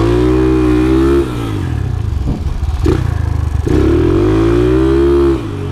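Single-cylinder engine of a modified Yamaha TTR125 flat-track bike under hard throttle: it revs up and holds, backs off about a second in, then pulls hard again from just under four seconds and drops off again near the end.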